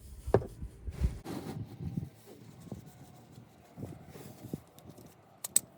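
Scattered light knocks and clicks, with a sharp click near the end, over a faint low rumble.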